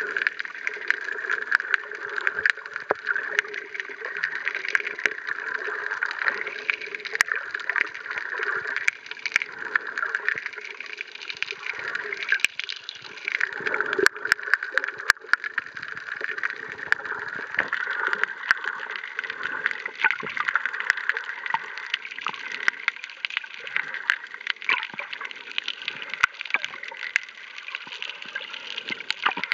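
Muffled water sloshing and gurgling picked up by a camera held underwater over a coral reef, with scattered sharp clicks throughout and a brief cluster of them about halfway through.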